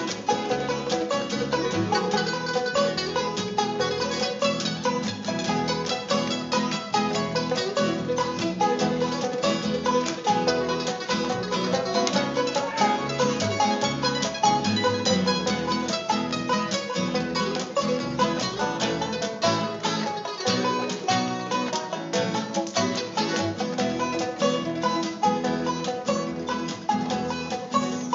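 Live band playing an instrumental passage, with rapid plucked-string picking over a steady backing.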